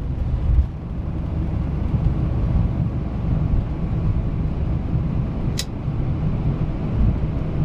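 Boeing 787-9 on its takeoff roll at takeoff thrust, heard from the cockpit: a steady low rumble of the engines and the wheels on the runway. A single short click about five and a half seconds in.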